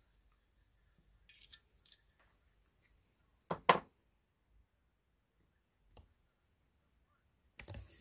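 Small rotary coax stripper being twisted around thin RG-174 coax to cut its outer jacket: a few faint clicks, then two sharp snaps about three and a half seconds in, and one more click near the six-second mark.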